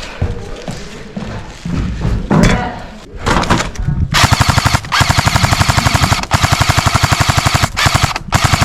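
Airsoft gun firing on full auto: a few short bursts about three seconds in, then long strings of rapid shots from about four seconds on, with brief breaks between them.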